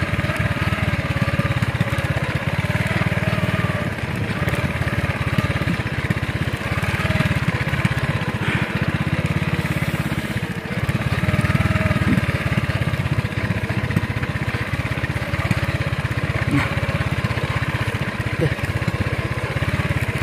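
Small motorcycle engine running as it is ridden along a rough dirt trail, easing off briefly a few times.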